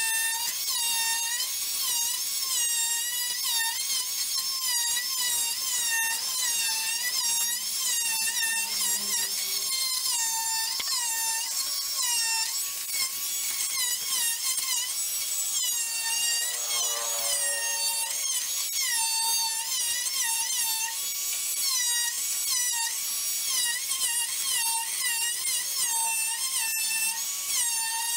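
Dremel oscillating multi-tool cutting into a log to free a jammed bandsaw blade: a high whine whose pitch dips and recovers over and over, a little more than once a second, as the blade is pushed into the wood. About two-thirds of the way through it briefly drops to a lower, falling note.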